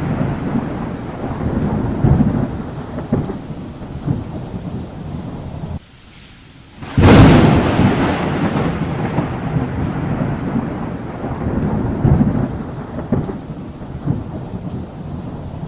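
Thunder rumbling over steady rain, dying down, then breaking off abruptly about six seconds in; about a second later a loud thunderclap crashes in and rolls on, slowly fading.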